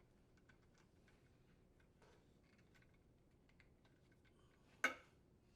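Faint small ticks and clicks of screws being driven with a screwdriver into a dishwasher door handle, otherwise near silence. One sharper click comes near the end.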